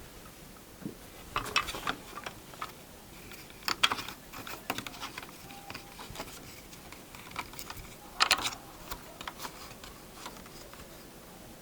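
Scattered light clicks and knocks of wood and workshop gear being handled, coming in three small clusters, with no machine running.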